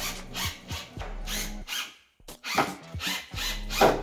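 Cordless impact driver driving a 1¾-inch screw down into plywood, running in spurts with a brief stop about two seconds in.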